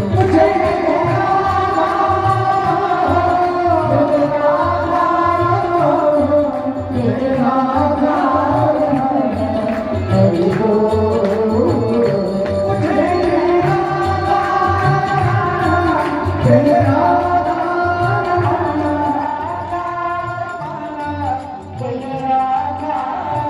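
Devotional aarti hymn sung by voices with a steady drum beat and jingling percussion.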